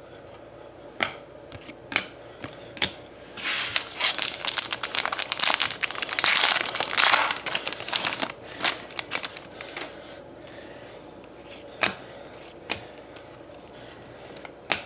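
A trading-card pack wrapper being torn open and crinkled for about five seconds in the middle. Before and after it come single sharp taps of cards being handled and set down.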